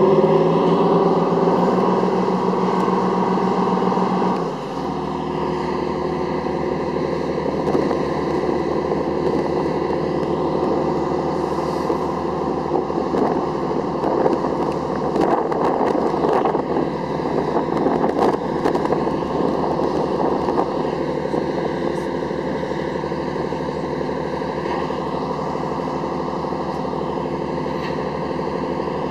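Heavy diesel engines of a stationary LARC amphibious vehicle and the cement mixer on its deck running: revved at first, dropping to a steady idle about four and a half seconds in. A few short knocks come about halfway through.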